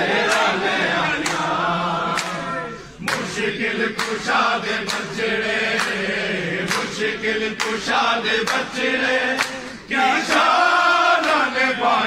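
A crowd of men chanting a devotional chorus together, with sharp hand claps about twice a second keeping the beat.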